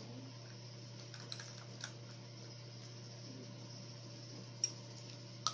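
Steady low hum under quiet room tone, with a few light clicks and taps as make-up items are picked up and handled; the two sharpest clicks come near the end.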